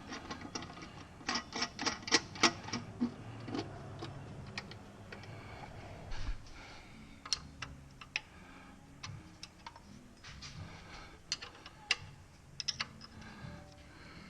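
Metal clicks and clinks of hand tools on bolts: a quick run of clicks, ratchet-like, between one and two and a half seconds in, then scattered single clicks through the rest.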